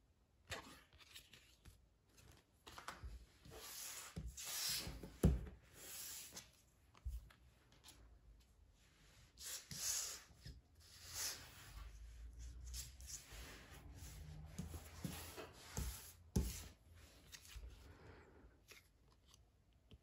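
Paper handling: glossy album photobook pages and photocards being flipped, slid and rustled by hand, in irregular swishes, with a few light knocks as things are set down on the table.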